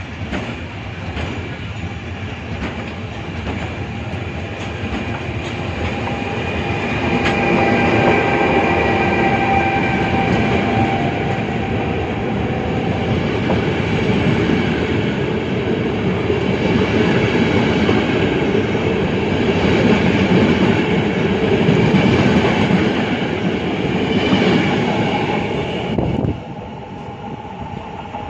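A train running past close by: a loud, dense rumble that swells with a steady high whine over it, then drops off suddenly near the end.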